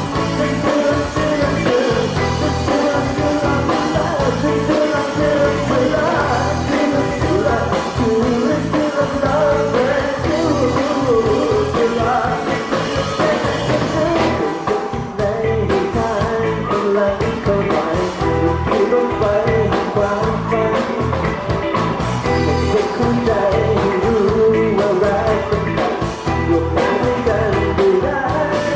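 Live pop-rock band playing: a singer over drum kit, bass guitar, keyboard and electric guitar, with a steady beat.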